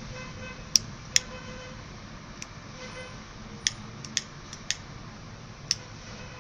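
A pocket lighter struck again and again to light a corn cob pipe: about seven sharp clicks spread unevenly, the two loudest about a second in. The breeze makes it hard to get the pipe lit.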